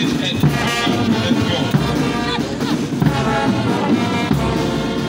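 A brass band playing march music.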